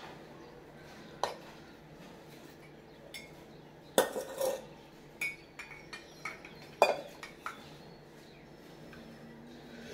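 Metal teaspoon stirring milk tea in a glass mug, clinking against the glass in a string of irregular strikes. The loudest clinks come about four seconds in and again near seven seconds.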